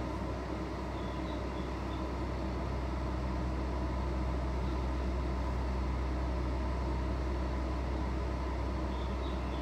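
Steady low hum of a local electric train standing at a station, heard from inside the passenger car, with a few faint high chirps about a second in and again near the end.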